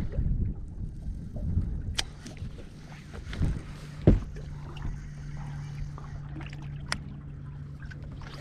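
Wind rumbling on the microphone aboard a small fishing boat, with a few sharp clicks from handling a baitcasting rod and reel and one louder thump about four seconds in. A steady low hum comes in about two seconds in and holds.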